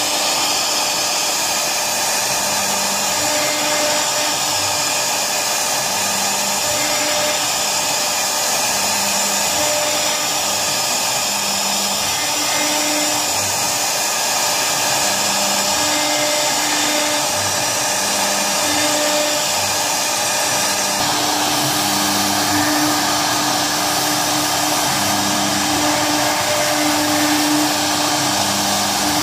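CNC router spindle running with its bit cutting grooves into a wooden sheet: a steady whine and hiss of the spindle and cutting, with lower hums that come and go every second or two.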